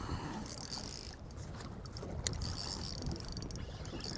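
Steady wind and sea noise aboard a small boat on choppy water, a low rumble under a high hiss, with a light click a little after two seconds in.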